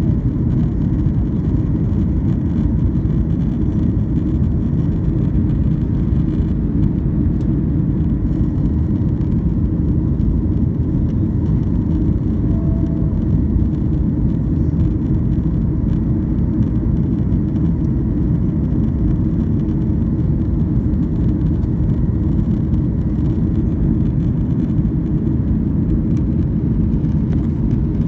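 Steady, deep jet engine and airflow noise heard inside the passenger cabin of a Boeing 737 climbing after takeoff.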